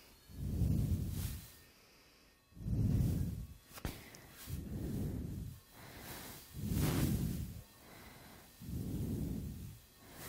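A person breathing close to the microphone: low, rushing breath puffs about a second long, one roughly every two seconds, with a single small click near the middle.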